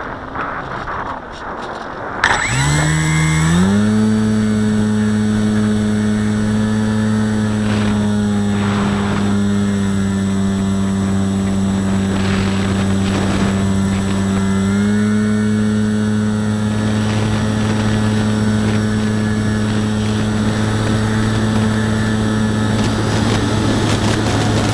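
Parkzone Radian RC glider's brushless electric motor and propeller spinning up about two seconds in, then running at steady throttle with a constant whine. Its pitch steps up slightly partway through. Before the motor starts there is only wind rushing over the microphone.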